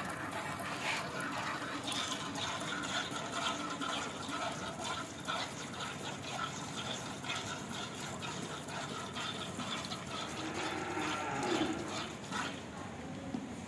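A cow mooing once: a long, low call starting about ten and a half seconds in, over a constant background of short clicks and scuffs.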